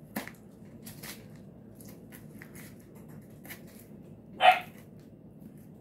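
A single short dog bark about four and a half seconds in, the loudest sound here. Around it are faint scrapes and light taps of a knife as it scrapes the guts out of a skinned brown bullhead catfish on newspaper.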